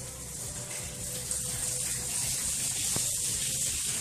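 A steady rushing hiss like running water, growing louder a little over a second in.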